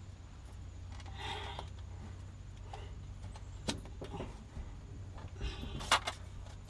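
Metal clicks, scrapes and a loud clank of tools working an oil filter loose under a pickup truck, with a steady low hum underneath. The loudest knock comes about six seconds in.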